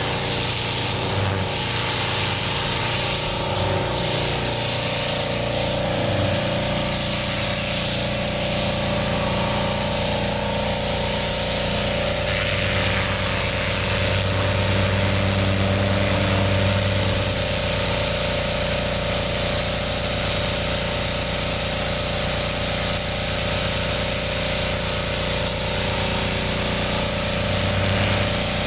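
Pressure washer running steadily: a constant motor drone under the hiss of the high-pressure spray on the pavement.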